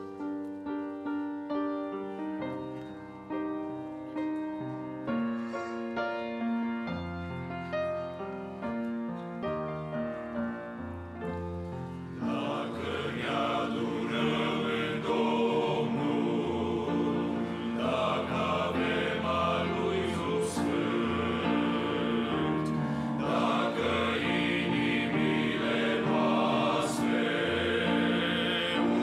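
A men's choir singing a Romanian hymn, entering about twelve seconds in after an instrumental introduction of single notes that each die away.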